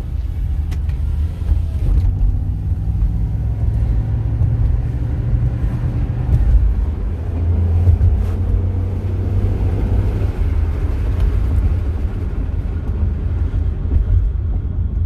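2006 Chevrolet Impala SS driving at steady speed, a low, even rumble of tyres and engine. No hub-bearing grinding is present: the newly replaced hub assembly runs quiet.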